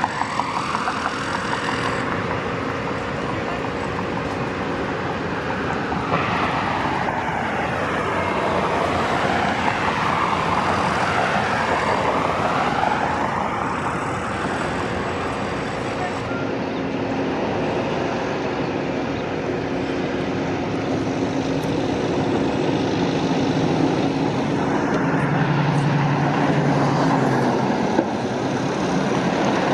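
Steady road traffic noise, with vehicles passing by and a low engine hum.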